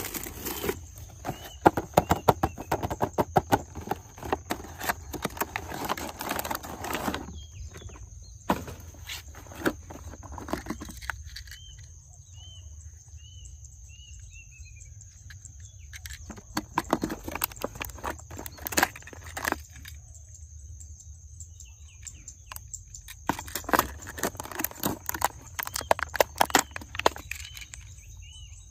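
Small toy cars rattling and clicking, in several bursts of dense clatter separated by pauses. Short bird chirps come in the quieter gaps.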